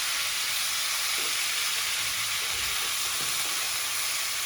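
Chicken liver and hearts frying in hot oil in a pan, giving a steady, even sizzle.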